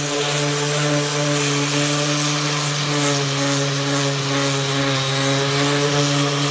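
Cordless random orbital sander running steadily with a constant hum, its pad rubbing over a painted wooden deck stair tread to rough up the paint.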